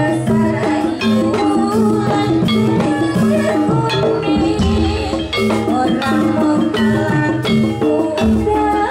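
Loud Javanese dance-accompaniment music in gamelan style: repeated short struck melody notes over a steady drum-led beat.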